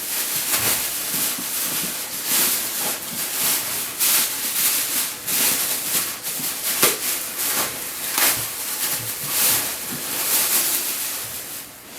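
Packaging rustling and crinkling steadily as a mask is unwrapped and pulled out of its box, with frequent sharper crackles.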